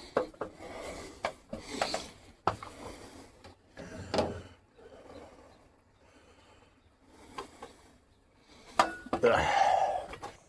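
Hands-on work noise: scattered knocks and clicks with rubbing and scraping, and a louder, voice-like sound near the end.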